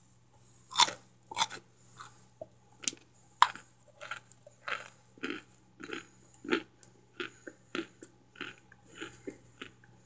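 Crunchy bites into microwaved laundry-starch chunks, loudest about a second in, followed by steady chewing of the brittle chunks at roughly one to two chews a second.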